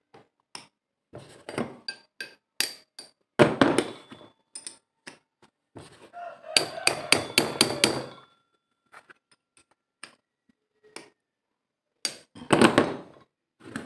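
Metal clinks and knocks of an open-end wrench working the bolts of a 2008 Honda Civic power steering pump as it is taken apart. They come in several bursts, with a quick run of sharp clicks about halfway through.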